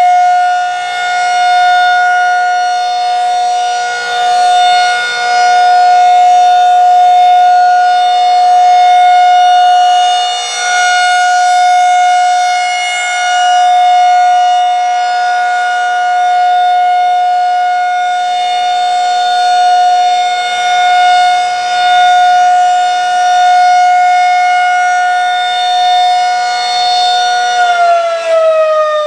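Federal Signal 2001-SRN rotating electromechanical outdoor warning siren sounding its steady alert tone, a single high note with rich overtones that swells and fades in loudness as the siren slowly rotates. Near the end the pitch starts to fall as the siren winds down.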